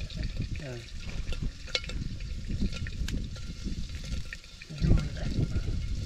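People talking in short bursts near the start and about five seconds in, over water sounds and small clatters.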